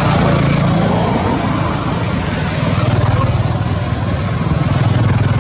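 A motor vehicle's engine runs steadily, with a low hum.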